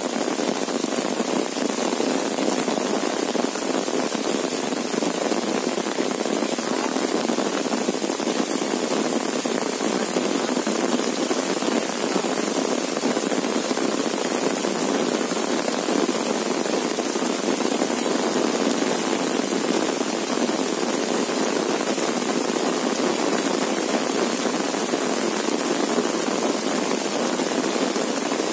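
Heavy monsoon rain falling steadily on an umbrella held overhead and on the rice field around it, an even, unbroken hiss of rain.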